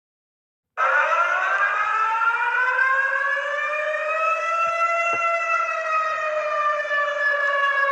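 Emergency alarm siren wailing: one long tone that rises slowly and then falls back, starting abruptly about a second in and cutting off suddenly at the very end.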